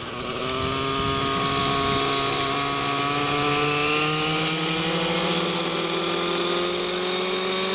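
Align T-Rex 700N nitro RC helicopter's glow engine running on the ground, with the rotor spooling up; the pitch rises slowly and steadily.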